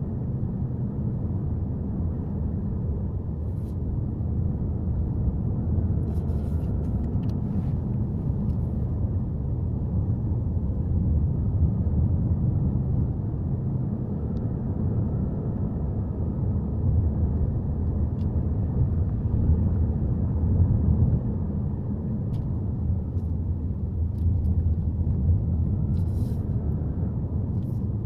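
Subaru Forester on the move: a steady low rumble of engine and road noise, with a few faint clicks.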